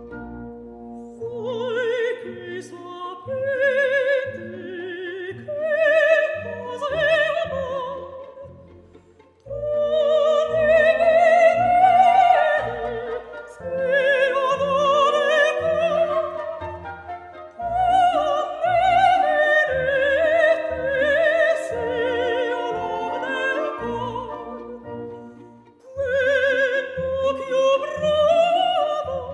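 Operatic singing with strong vibrato over orchestral accompaniment, laid on as background music; the sung phrases break off briefly twice.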